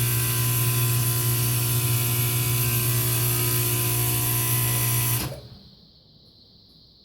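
Heating unit making its recurring noise: a loud, steady mechanical hum and drone, which cuts off sharply about five seconds in, leaving only a faint hiss.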